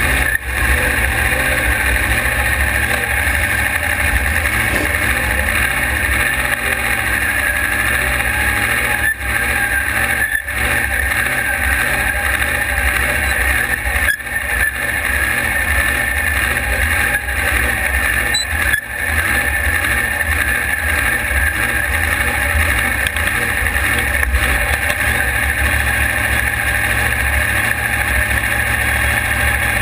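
Drag race car engine idling steadily with a fast, lumpy beat, dipping briefly a few times.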